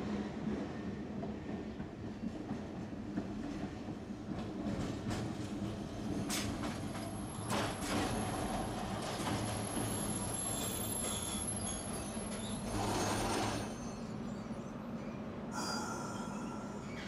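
Tosaden tram car 592 running in on the rails and slowing to a stop, a steady low rumble with a thin high wheel squeal in the middle. A short hiss comes about thirteen seconds in.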